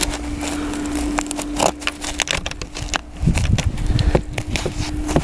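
Footsteps crunching through deep fresh snow, with scattered sharp crunches and clicks. A steady low hum runs underneath, and a low rumble of wind or handling on the microphone joins about three seconds in.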